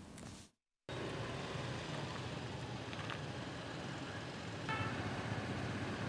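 Steady street traffic noise that begins after a moment of silence about a second in, with a brief high tone near the five-second mark.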